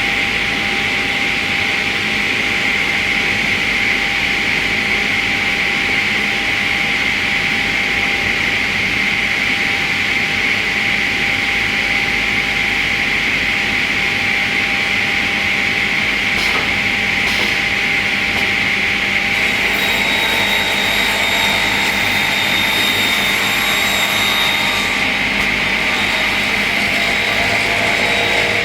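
Multi-blade rip saw for door casing strips running, a steady loud whine from its motor and blades. There are two short knocks about two-thirds of the way through, then several seconds of higher ringing tones as the blades saw wood.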